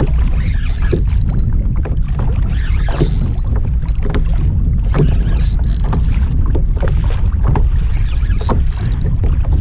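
Wind buffeting the microphone with a steady low rumble, over water lapping at a kayak's hull, with scattered short knocks throughout.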